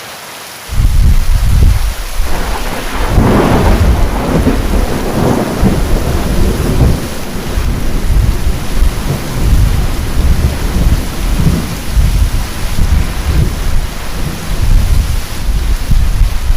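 Heavy rainstorm with thunder: a loud thunderclap breaks suddenly about a second in and rolls on as long, deep rumbling under a steady hiss of heavy rain.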